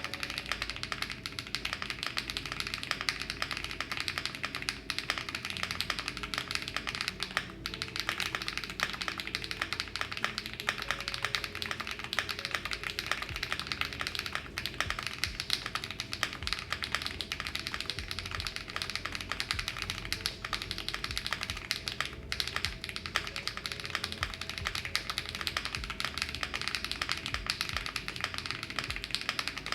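Continuous fast typing on a mechanical keyboard fitted with cherry-profile PBT and ABS keycaps: a steady stream of crisp key clacks.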